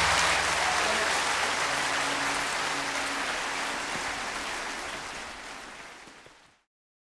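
Audience applause just after the band's final chord, with the last notes still sounding faintly under it at first. It fades steadily and stops about six seconds in.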